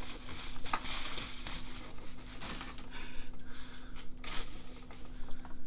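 Plastic bubble wrap crinkling and rustling as it is pulled off a helmet, in irregular bursts.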